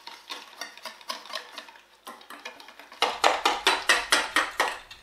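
Wire balloon whisk beating eggs, sugar and cornflour in a stainless steel bowl, with quick rhythmic strokes of about five a second as the wires clink against the metal. The whisking gets much louder about three seconds in.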